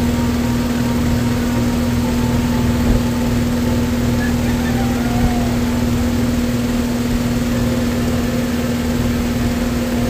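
Steady mechanical hum with one constant droning tone and a low rumble underneath, unchanging throughout, with a couple of faint short chirps near the middle.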